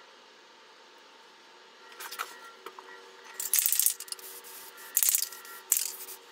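Small tin of black paint and a paintbrush being handled: a few light clicks, then three short, harsh scraping bursts, the first and longest about three and a half seconds in.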